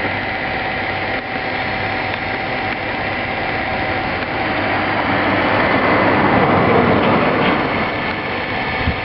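Sioux 622N valve grinder running: its motors and belt drives give a steady mechanical hum with a few held tones, swelling louder and noisier for a couple of seconds past the middle.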